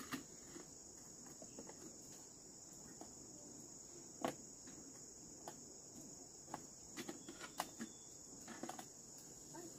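Steady high-pitched chorus of insects chirring without a break, with a few faint clicks and taps scattered through it, the clearest about four seconds in and again around seven to eight seconds.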